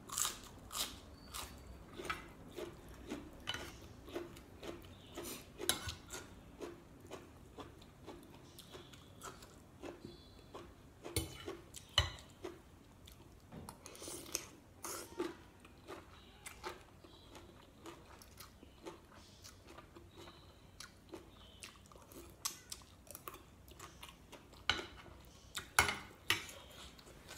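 A person eating up close, chewing and crunching mouthfuls of spicy glass noodle salad with boneless chicken feet: irregular short crunches and wet mouth clicks every half second or so, with a few louder crunches about halfway through and near the end.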